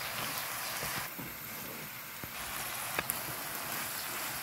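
Chicken, potato and onion filling frying in oil in a pan, sizzling steadily, with a sharp click about three seconds in.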